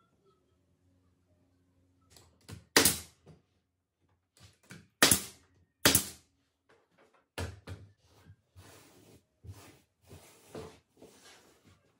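Pneumatic pin nailer firing into stacked particleboard strips, a few sharp pops spaced a second or two apart. Softer scraping and shuffling follows near the end.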